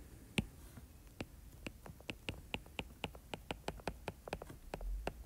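Stylus nib tapping and clicking on a tablet screen while writing, an irregular run of light ticks at roughly four to six a second.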